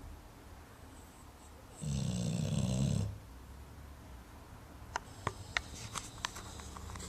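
One loud snore about two seconds in, lasting about a second, followed near the end by a run of short sharp clicks.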